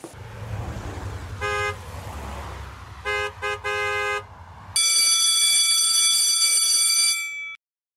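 Street traffic with car engines, with a short car horn toot about one and a half seconds in and two more between three and four seconds. Just before five seconds an electric school bell starts ringing steadily and cuts off about two and a half seconds later.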